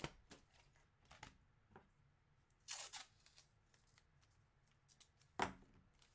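Plastic packaging being handled: a few soft clicks, a short crinkling rustle about three seconds in, and a louder rustle with a thump near the end.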